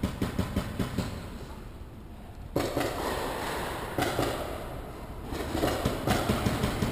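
Paintball markers firing in quick runs of sharp pops, several a second, with the shots echoing around the hall; the pops come thick at the start, ease off, and pick up again near the end.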